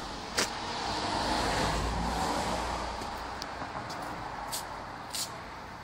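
A road vehicle passing, its noise swelling about a second in and then slowly fading, with a few sharp clicks.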